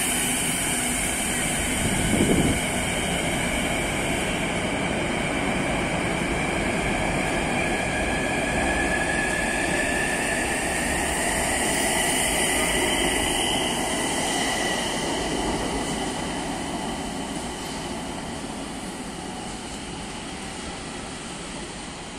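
Electric metro train pulling out of the station, its whine rising slowly in pitch as it accelerates over the rumble of wheels on rail, then fading as it moves away. A brief knock sounds about two seconds in.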